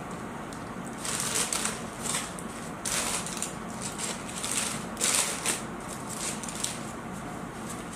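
Paper food packaging being torn and unwrapped by hand, rustling and crinkling in repeated short bursts.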